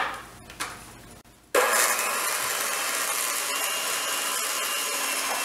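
Electric hand mixer switching on suddenly about one and a half seconds in and running steadily at an even level, its twin wire beaters beating butter and icing sugar.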